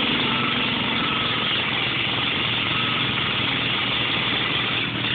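Engines of two garden tractors, a John Deere 314 with its single-cylinder Kohler and an Ariens, running steadily under load while they pull against each other on a tow strap.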